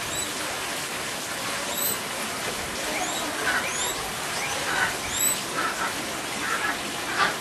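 Steady outdoor background hiss with about five short, high chirps scattered through it, and faint distant voices in the second half.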